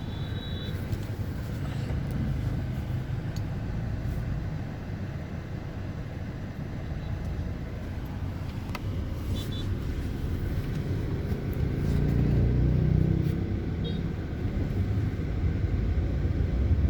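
Steady low rumble of a motor vehicle on the move, heard from inside the cabin, swelling somewhat about twelve seconds in. A few faint short high beeps sound three times.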